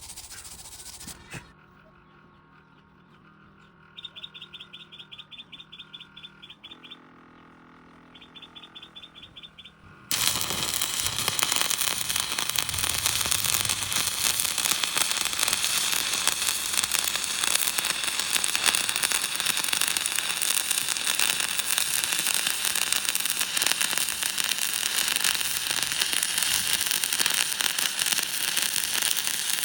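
Electric arc welding: after a brief hush and two short runs of rapid high-pitched clicking, the arc strikes about ten seconds in and crackles and sizzles steadily to the end.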